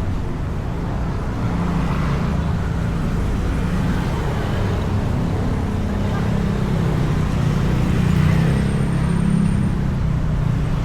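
Motorcycle engine running while riding in traffic, heard from inside the rider's helmet with a steady rush of wind and road noise. The engine note rises and falls a little with the throttle.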